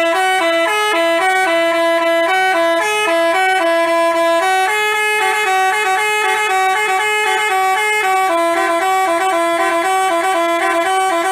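Bus telolet basuri horn, a multi-note musical air horn, playing a quick tune of stepped notes sounded two at a time. It starts abruptly.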